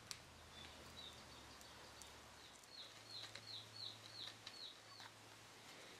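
Faint bird song: a run of about a dozen short, high chirps over roughly four seconds, heard over a steady low hum and a few small clicks.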